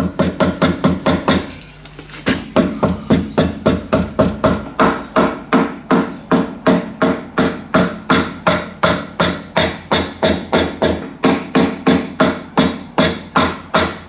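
High-density polyethylene mallet tapping the edge of a sheet-aluminium collar over a hammer form clamped in a bench vise, rolling the rim over. The blows are steady, about three a second, with a brief lull about a second and a half in.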